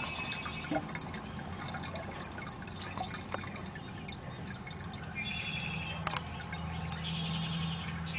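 Distilled water trickling and dripping down the outlet tube into a plastic collection jug. It is condensate that ran off the solar still's inside walls all at once after they were tapped, with a few separate drips.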